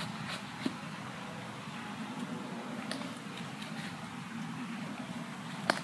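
Knife shaving curls off a dry split stick for tinder: a few separate scraping strokes, with a sharp knock near the end, over a steady low hum.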